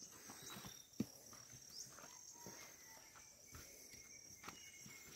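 Faint footsteps scuffing along a dirt hillside trail, with a sharper knock about a second in, over a steady high-pitched insect drone.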